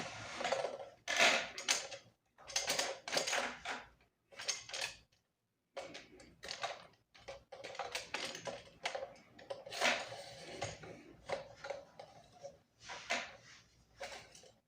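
Irregular clicking, knocking and rattling of hard plastic and metal parts as a round LED ring light and its stand are handled and adjusted by hand, with a short pause about five seconds in.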